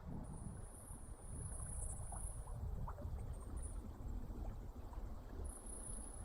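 Wind buffeting the microphone and water moving around a kayak, a steady low rumble. A high, thin hiss sounds for about two seconds near the start and again briefly near the end.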